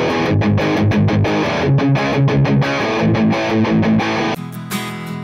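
Distorted electric guitar played through a guitar amplifier and picked up by a microphone in front of the amp's speaker, a riff of sustained notes. About a second before the end it cuts to an acoustic guitar being strummed.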